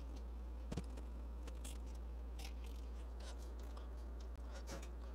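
Light clicks and scratchy rustles of stiff insulated wires being handled and twisted together onto a welding cable's end, with a sharper click about three-quarters of a second in, over a steady low hum.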